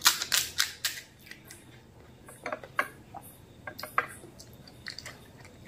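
Crisp fried phuchka (pani puri) shells cracking: a quick run of sharp crackles in the first second, then a few scattered small cracks as the thin shells are broken open with a fingertip.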